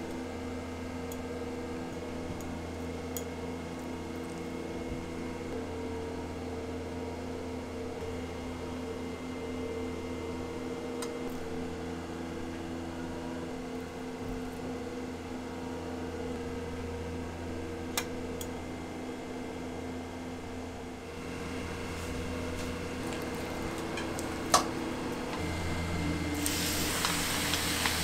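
Steady machine hum with a few sharp clicks; a hiss grows louder near the end.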